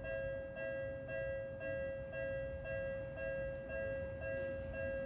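Japanese level-crossing warning bell ringing: an electronic two-tone ding repeating about twice a second, sounding while the crossing is closed for an approaching train.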